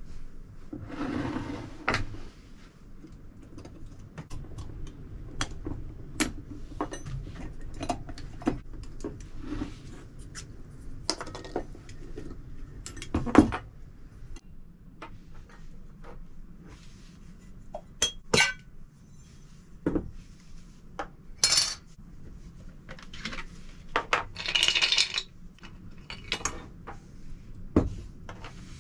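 Metal parts of a 1940 brass carbide miner's lamp clinking and knocking against each other and the wooden table as the lamp is taken apart. Scattered single taps, a few with a brief high ring, and a couple of short scraping rustles.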